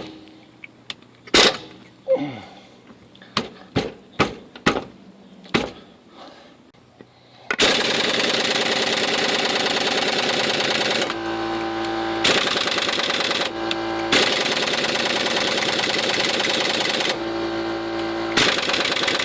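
Air impact wrench hammering on a rusted axle bolt in four long bursts, the first starting about seven seconds in, with a steady hum in the pauses between them. Before that, a few sharp knocks and clinks of metal tools.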